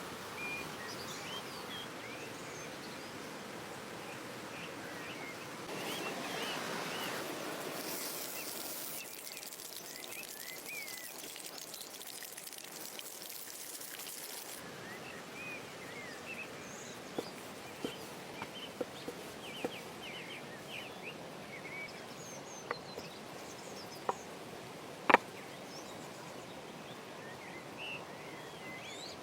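Outdoor ambience with birds chirping on and off over a steady background hiss. A louder rush of noise comes about six seconds in and lasts a few seconds. In the second half there is a scattered run of sharp clicks or taps, the loudest about twenty-five seconds in.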